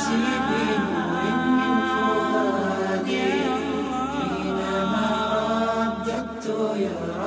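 Arabic devotional nasheed sung a cappella: voices holding a winding, ornamented melody over a steady low drone, with no clear words in this stretch.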